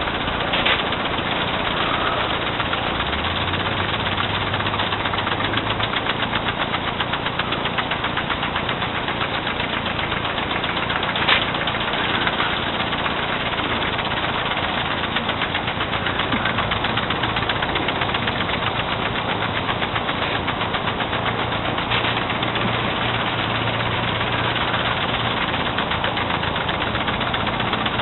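Lawn sprinklers running loud and close: a steady hiss with rapid, even ticking and a few sharper clicks. A low hum comes in twice for several seconds.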